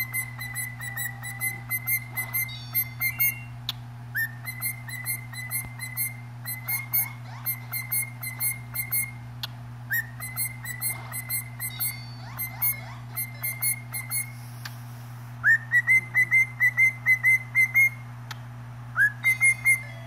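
A pet parrot whistling runs of rapid, short notes at one high, steady pitch, about four or five a second. Several runs open with a rising note, and the loudest run comes about two-thirds of the way through.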